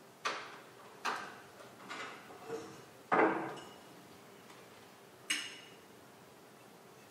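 Laboratory glassware being handled and set down on a bench: about six sharp clinks and knocks, the loudest a heavier knock about three seconds in, some with a brief glassy ring.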